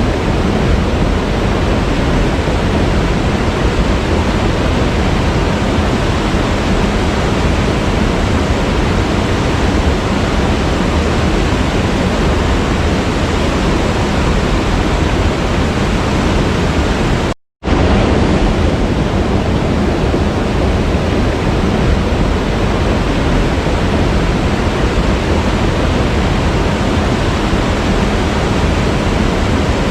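Steady rush of a waterfall, an even roar of falling water. It cuts out completely for a split second a little past the middle, then carries on unchanged.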